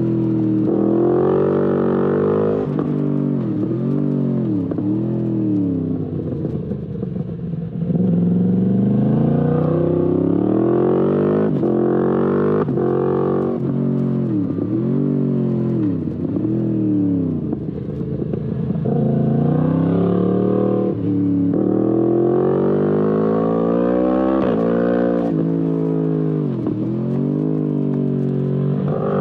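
Yamaha MT-10 SP's crossplane inline-four engine through an Akrapovic exhaust, riding hard. The pitch climbs as it accelerates and drops sharply again and again between climbs, with a lower, quieter stretch off the throttle about six to eight seconds in.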